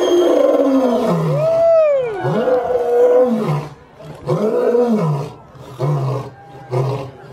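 Male lion roaring: one long, loud roar, then a run of shorter roars about a second apart, each shorter than the last.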